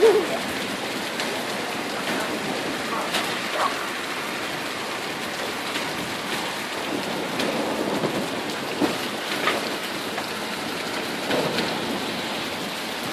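Heavy rain pouring down in a steady hiss, spattering on surfaces, with now and then a louder splash or drip.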